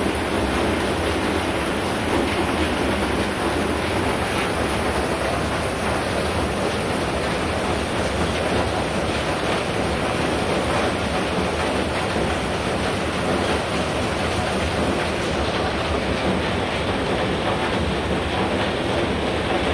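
Steady heavy rain falling, an even hiss of downpour on wet paving.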